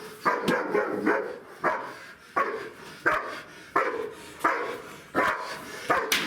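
German Shepherd barking repeatedly at an even pace, about nine barks, roughly three every two seconds.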